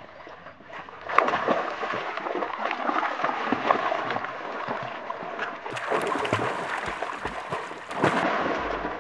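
Dogo Argentinos splashing and wading through a shallow stream, with water sloshing and splashing. It gets louder about a second in, and there is a burst of heavier splashing near the end as two dogs tussle in the water.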